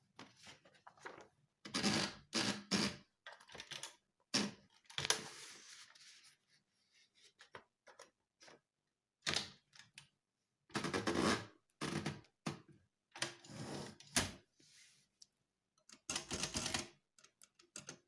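Facit manual typewriter being loaded with a sheet of paper: irregular clicks, clunks and clatter in short bursts as the paper is fed in and the platen knob is turned.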